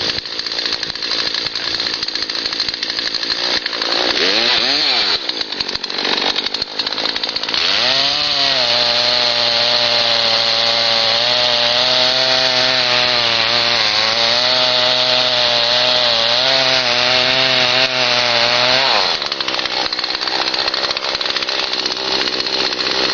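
Two-stroke chainsaw running, revving up and down briefly about four seconds in, then held at a steady, lower loaded pitch for about eleven seconds as it cuts into a red oak trunk, the back cut of a felling. It then drops back to a lighter running note.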